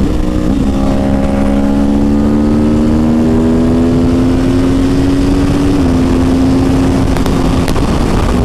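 2009 Yamaha R1's crossplane inline-four engine running at highway speed, its note rising slowly as the bike pulls, then dropping slightly about six seconds in. Strong wind rush underneath.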